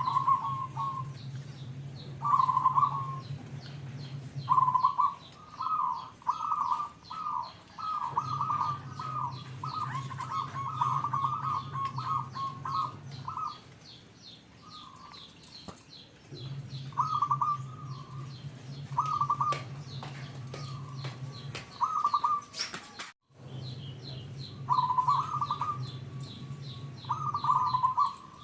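Zebra dove (perkutut) cooing in repeated short trilled phrases, with pauses between groups of calls. Fainter high chirps of other small birds run underneath.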